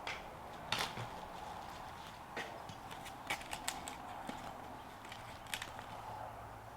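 A few scattered light clicks and knocks, the sharpest a little under a second in, over a steady low background hum.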